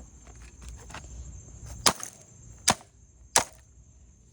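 Three sharp blows of a wooden board striking a Roomba robot vacuum's plastic body, each well under a second apart.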